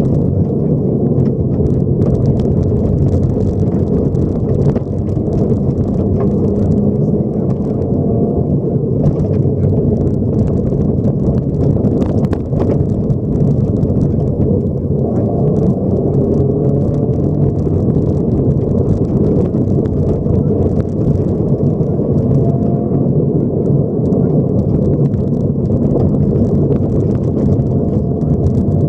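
Subaru rally car's flat-four engine running hard at speed on gravel, heard from inside the cabin with heavy tyre and road rumble. Scattered sharp clicks of stones hitting the car. The engine eases off about halfway through and then pulls again.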